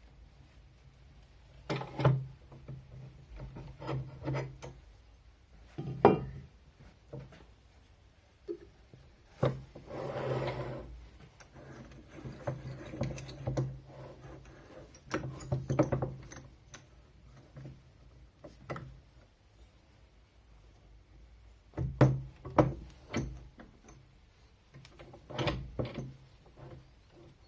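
Wood being handled: irregular knocks and short scrapes of wood on wood, with a longer stretch of rubbing about ten seconds in and a quiet gap in the middle.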